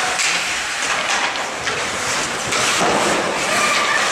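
Ice hockey rink noise: skates scraping and hissing across the ice, with scattered clatter of sticks and puck, in a steady echoing hiss.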